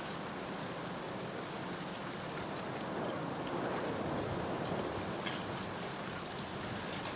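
Recording of a lava flow from the La Palma volcano: a steady gritty rushing with faint glassy clinks, like a basket of rubble and broken glass being shaken. It swells in the middle, and a few sharper clinks come near the end.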